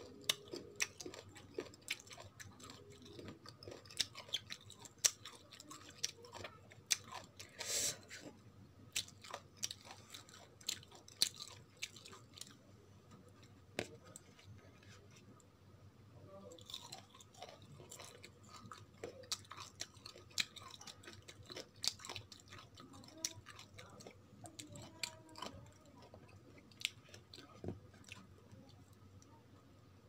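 Raw green mango being bitten and chewed close to the microphone: a long run of crisp, wet crunches, with a quieter lull midway.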